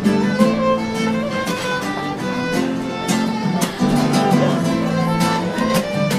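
Background music: a violin melody over plucked guitar notes.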